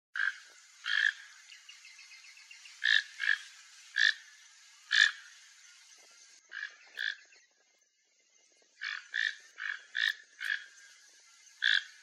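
Toco toucan calling: about fourteen short croaking calls in irregular clusters, with a pause of about a second and a half past the middle.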